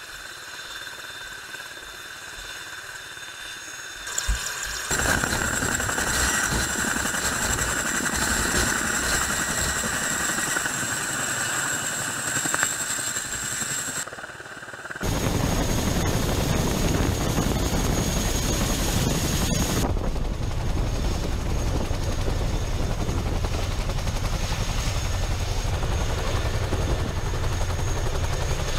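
Helicopter rotor and engine noise, steady within each stretch but jumping abruptly in level and tone several times, louder and deeper from about halfway.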